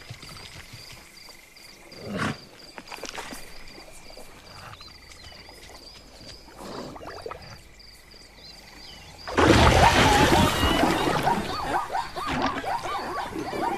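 Cartoon sound effects: quiet savanna ambience with a steady high chirring and a few soft sounds. About nine seconds in, a sudden loud rushing burst breaks in and stays loud, with rapid wavering animal squeals running through it.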